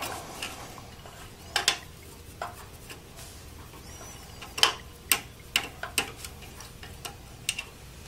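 Small Phillips screwdriver turning out a screw from a desktop computer's graphics card bracket: scattered sharp metallic clicks and ticks, irregularly spaced and coming more often in the second half.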